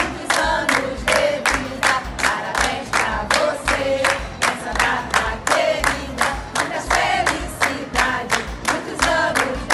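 A group of women singing together while clapping their hands in a steady rhythm, about four claps a second.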